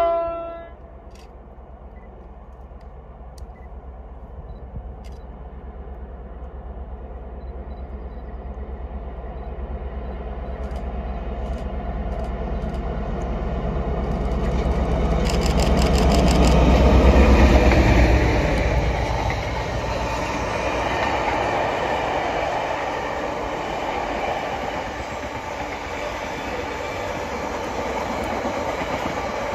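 Class 60 diesel locomotive approaching with a train of tank wagons, its low engine rumble growing steadily and loudest as it passes about 17 seconds in. The wagons then keep rolling by with a steady rattle of wheels on the rails.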